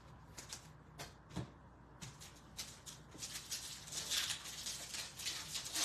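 Foil trading-card pack being crinkled and torn open, with cards handled. Scattered crackles at first, growing denser and louder about two seconds in.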